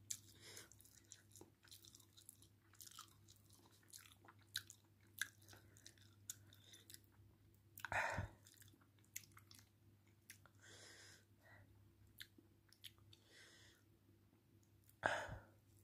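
Faint wet squishing and small clicks of a hand mixing and squeezing cooked rice into curry gravy, with a louder squelch about eight seconds in and another near the end, over a low steady hum.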